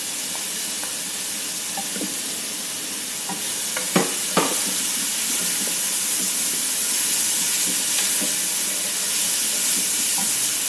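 Chopped onion frying in hot oil in a nonstick pot: a steady sizzle with a wooden spoon stirring and scraping through it, the sizzle growing a little louder partway through. Two sharp knocks about four seconds in.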